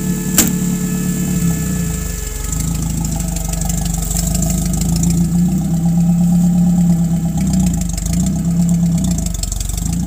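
UAZ off-roader's engine running at low revs, its note sagging briefly and picking up again a few times. A single sharp knock about half a second in.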